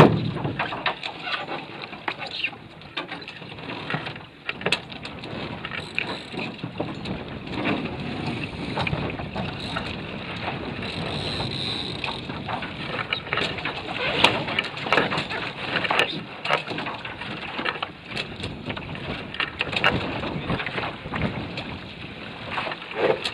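Water splashing and slapping against the hull of a Prindle 16 catamaran as it gets under way, with wind buffeting the microphone. Frequent short knocks and splashes, with one loud knock at the outset.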